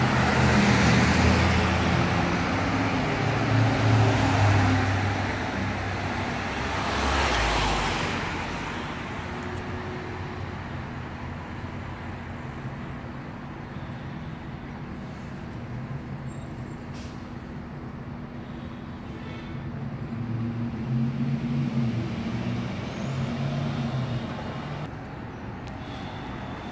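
City street traffic: vehicles going by, with the low hum of a heavy engine loud in the first few seconds and again about twenty seconds in, and a vehicle passing close at about seven seconds.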